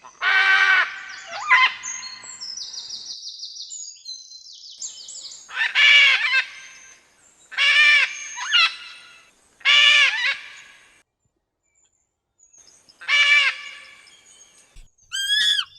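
Macaw squawking: about five loud, harsh calls a couple of seconds apart, with softer rattling chatter between the first two.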